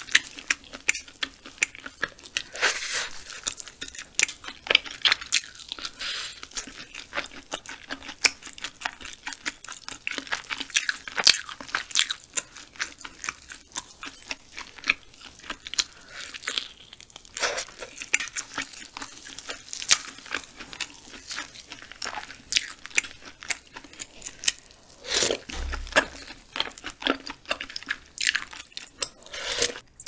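Close-miked chewing of frog meat, with many sharp, irregular crunches and wet mouth sounds.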